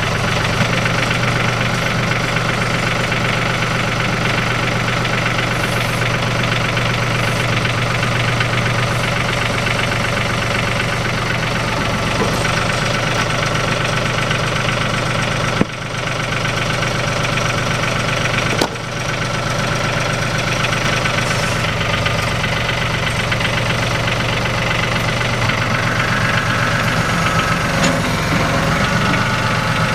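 RK 37 compact tractor's diesel engine running steadily at idle, with two short clicks about halfway through.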